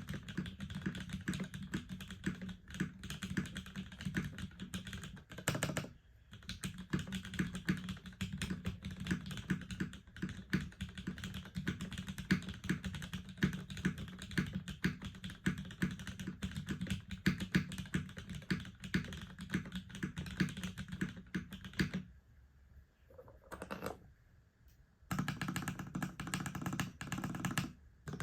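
Continuous fast typing on a custom tenkeyless mechanical keyboard with lubed Cherry MX Black linear switches, an aluminium plate and GMK keycaps: a dense stream of deep key strikes. The typing stops briefly about six seconds in, and again for about three seconds near the end with only a few single presses, before it resumes.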